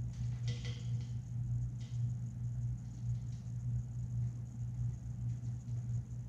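Steady low hum of running equipment, with a few short, faint hissing or scraping sounds from two male Madagascar hissing cockroaches squaring off: the first about half a second in, another near two seconds and a softer one around three seconds.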